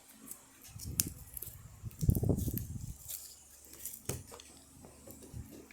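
Butter slime being mixed by hand and scraped out of a plastic bowl: soft, sticky squelches with a few light plastic clicks and taps.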